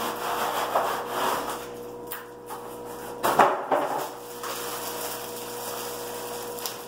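Cardboard packaging being handled as an aquarium light fixture is slid out of its box, with rubbing and rustling and one sharp scrape a little over three seconds in, followed by the crinkle of the fixture's plastic wrap.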